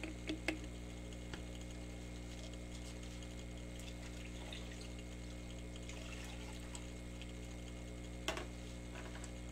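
Liquid glugging as it is poured into a plastic bottle through a funnel, stopping about half a second in. After that a steady low electrical hum carries on, with a single short knock near the end.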